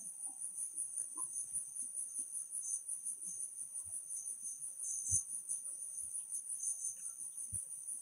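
Steady, high-pitched chorus of insects shrilling in the garden, with a few soft low thuds.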